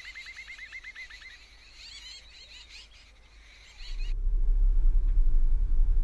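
A small bird calling: a fast run of repeated high notes, then a few scattered chirps. About four seconds in this gives way to the louder, steady low rumble of a vehicle driving along a dirt track, heard from on board.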